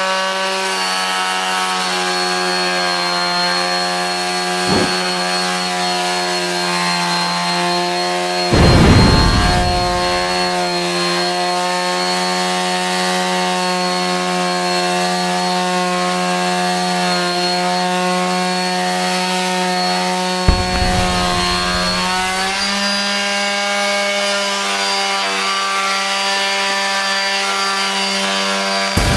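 Tacklife PMS02B mouse detail sander running, a steady buzzing hum near 200 Hz that fits its 12,000 oscillations per minute, as the pad rubs on wood. Its sound turns briefly louder and scratchier twice, about a third of the way in and again about two-thirds in, and its pitch steps up slightly soon after the second time.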